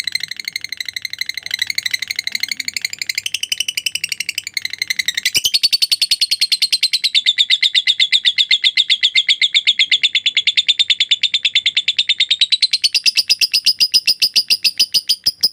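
Lovebird singing a long, unbroken ngekek: a rapid chattering trill of fast repeated high notes that never pauses, jumping up in pitch about five seconds in and rising again near the end.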